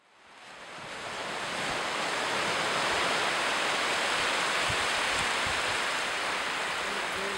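Sea waves washing onto a beach, fading in from silence over the first second or so, then a steady rush.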